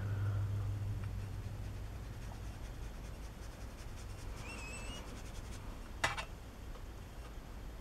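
Paintbrush rubbing silver shimmer watercolour onto paper, a faint scratching. One sharp click about six seconds in.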